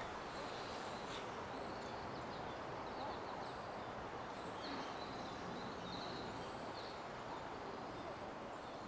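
Distant small birds chirping now and then over a steady outdoor background hiss.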